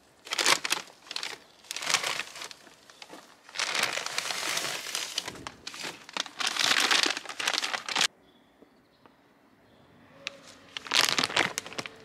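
Crinkling and crumpling of a wrapper or bag being handled, in bursts for the first eight seconds, then a pause of about three seconds and another burst near the end.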